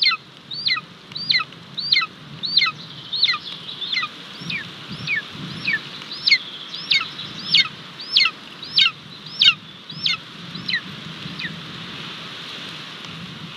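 Golden eagle giving a long series of high, piercing calls, each sliding sharply downward in pitch, about one and a half a second, growing fainter and stopping near the end.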